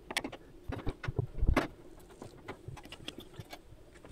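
Scattered metallic clicks and knocks of a screwdriver and an electric oven's sheet-metal casing being worked on to remove its panel screws, with a louder knock just after the start and another about a second and a half in, then lighter ticks.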